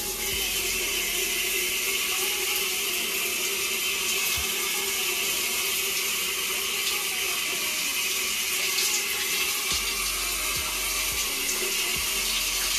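Shower turned on at its lever valve and running: a steady rush of water that starts suddenly at the beginning.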